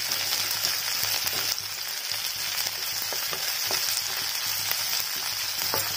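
Sliced onions sizzling in hot oil in a kadai, stirred with a wooden spatula that clicks and scrapes against the pan now and then. The onions are being fried on their way to golden brown.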